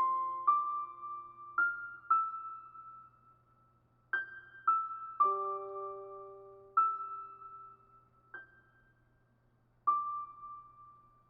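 Slow solo piano improvisation: sparse single notes and a few soft chords, each left to ring and fade, with short pauses between phrases.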